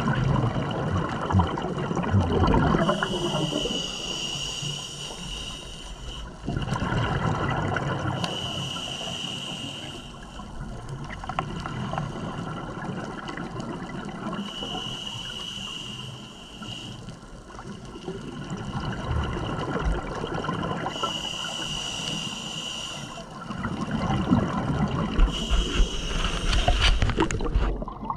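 Scuba regulator breathing underwater: hissing inhalations alternate with bubbly, gurgling exhalations, repeating every several seconds.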